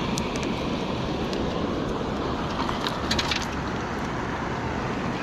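A rusty wire shopping cart is dragged over a concrete slab, over a steady rushing noise, with a brief clatter of its wire frame about three seconds in.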